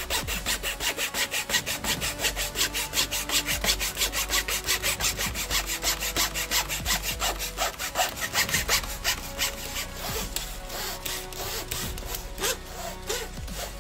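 Fine-toothed hand saw cutting back and forth through a taped bundle of wooden dowels in an aluminium miter box, in quick, even strokes about five a second. The strokes grow weaker and less regular over the last few seconds.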